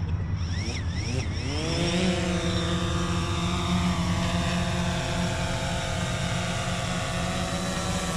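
DJI Phantom quadcopter's propeller motors spinning up, the whine rising in pitch over the first two seconds, then running at a steady pitch with slight wavers.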